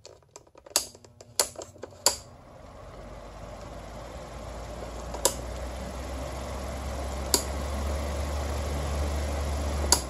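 Lasko 12-inch table fan (model 2027) with its Glory motor: a few sharp clicks, then the motor hum and rush of air building steadily louder over several seconds as the fan runs up to speed. A single click comes near the end.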